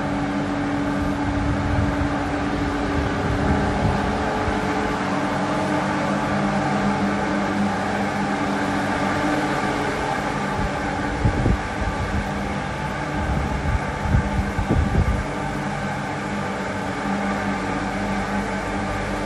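A steady machine hum made of several held tones, with a few irregular low thumps about halfway through and again a few seconds later.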